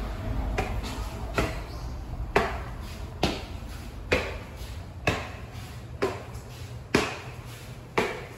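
Footsteps climbing concrete stairs and walking onto the landing, a little faster than one step a second, each step a sharp click with a short echo.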